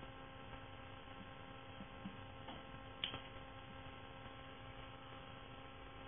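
Steady electrical mains hum on the recording, with a few faint ticks and one sharper click about three seconds in.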